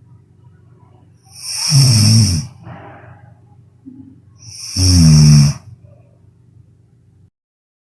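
A sleeping person snoring loudly: two snores about three seconds apart, each a rough vibrating rattle lasting under a second, with a softer breath after the first. The sound cuts out to silence near the end.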